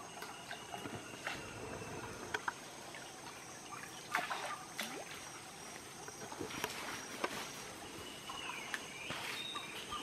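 Water splashing and dripping as a fishing net is swung through and thrown over a flooded stream by men wading in it, spray falling off the mesh in a scatter of short splashes.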